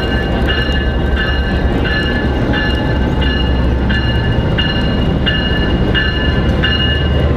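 Diesel locomotive rumbling as it rolls slowly into the platform, the rumble swelling as it draws near. Over it, a bell-like tone rings steadily, about three times every two seconds.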